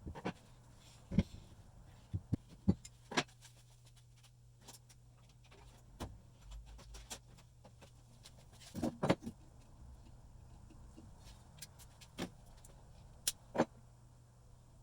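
Irregular sharp clicks and knocks of metal vise parts and tools being handled on a workbench, a dozen or so spread out, with the loudest cluster about nine seconds in, over a low steady hum.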